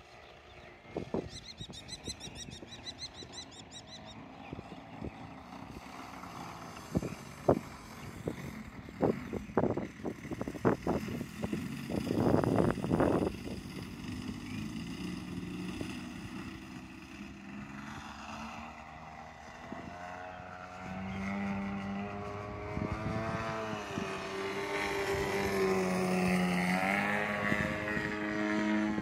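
Engine of a large radio-controlled Extreme Flight Bushmaster model plane: faint at first, with a run of sharp thumps in the first half, then from about two-thirds of the way in a propeller drone that rises and wavers in pitch and grows louder as the engine is throttled up and the plane climbs away.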